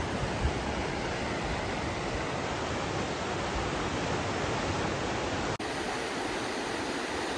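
Kern River whitewater rushing steadily over rapids, the river running high with snowmelt. The rush breaks off for an instant about two-thirds through, then goes on.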